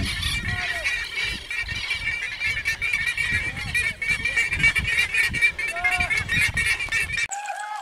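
Birds calling in a loud, continuous chorus of rapid repeated cries, over wind rumbling on the microphone. Near the end the rumble cuts off abruptly and a lower, repeated bird call carries on.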